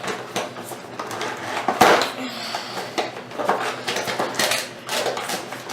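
Plastic and cardboard toy packaging crinkling and clicking as a boxed figure is worked loose, with irregular crackles and a louder snap about two seconds in.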